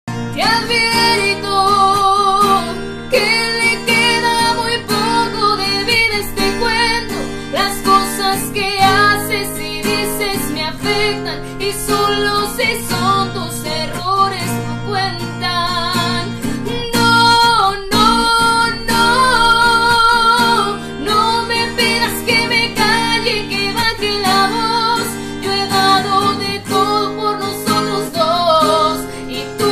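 A woman singing a Spanish-language ballad while strumming chords on an acoustic guitar; her voice carries the melody with vibrato on held notes.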